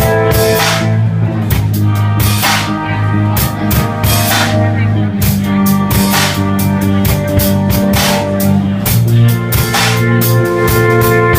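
Instrumental rock music with drum kit and guitar, a steady beat without vocals.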